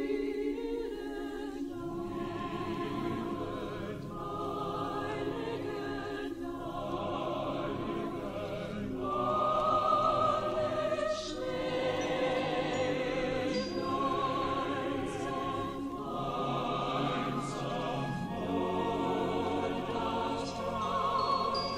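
Background music of slow choral singing, with long held notes that waver in pitch over a steady accompaniment.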